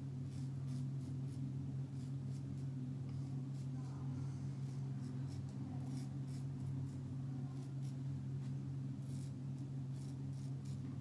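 Edwin Jagger double-edge safety razor with a King C. Gillette blade scraping through lathered stubble in short, repeated strokes, over a steady low hum.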